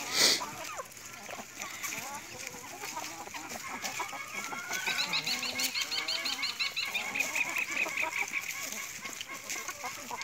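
A flock of hens feeding on cut grass, clucking softly among scattered pecks and rustles of the leaves. A brief loud noise comes right at the start. From about five seconds in a fast run of high repeated notes goes on for nearly three seconds, about seven a second.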